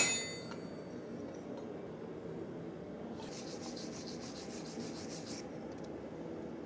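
A hammer blow on a steel stamp, punching the touch mark into a hot forged axe head, rings off quickly at the start. Then there is a steady low background noise, and a dry scraping rasp of about two seconds in the middle.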